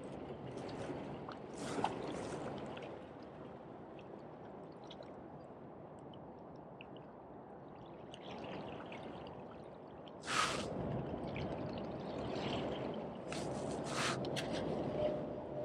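Small waves lapping and sloshing against jetty rocks, with a few brief splashes; the loudest comes about ten seconds in.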